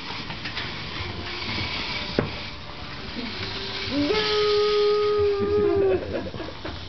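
A voice holding one long 'oooh' note for about two seconds, gliding up into it about four seconds in. There is a single sharp knock about two seconds in.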